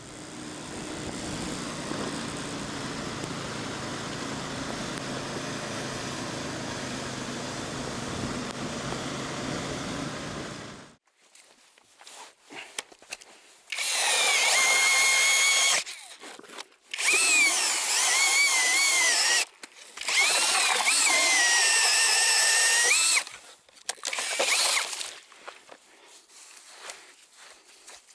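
A steady low hum for about the first ten seconds, then stops. After a short gap, a power drill driving an ice auger through the ice runs in four bursts of a few seconds each, its high whine dipping and recovering as the auger bites under load.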